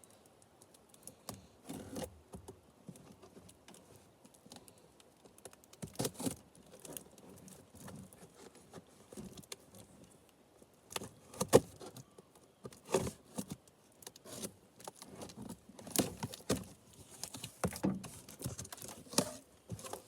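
A box being opened and its packaging and contents handled: scattered rustling, crinkling and light knocks, with one sharp knock about 11.5 seconds in.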